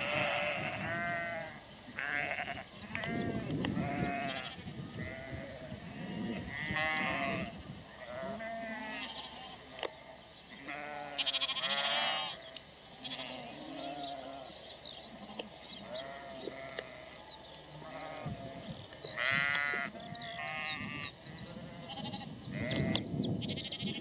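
A mob of ewes and lambs bleating continually, many calls overlapping, some higher-pitched than others.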